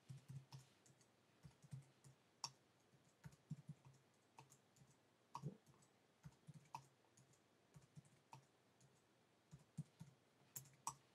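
Faint computer keyboard typing: short irregular key clicks, a few a second, in small runs with pauses between, as brief entries are keyed in and confirmed one by one.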